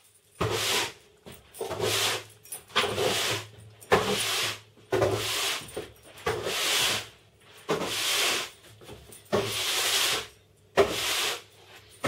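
Broom sweeping the floor in short, even strokes, about one a second, each a brushing scrape.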